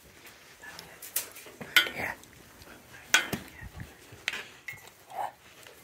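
A handful of sharp metallic clinks and knocks, about five of them scattered a second or so apart, amid footsteps on a debris-strewn concrete floor.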